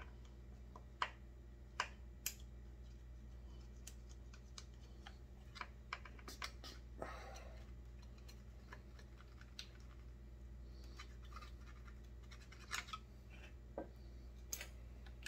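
Faint, scattered clicks and scrapes of a thin metal tool being worked by hand into a small clogged hole in a McCulloch PM 700 chainsaw's cylinder, over a steady low hum.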